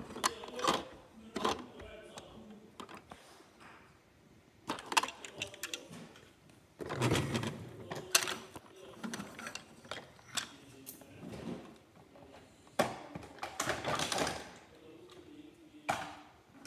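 Plastic toy cars and trucks being handled and pushed on a hard floor: scattered clicks and clattering knocks, busiest about halfway through and again near the end.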